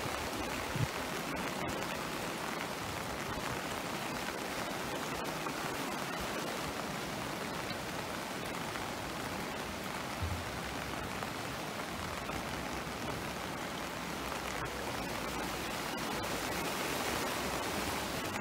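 The Kyll river in flood, its floodwater rushing with a steady, even roar of water. A short low thump about a second in.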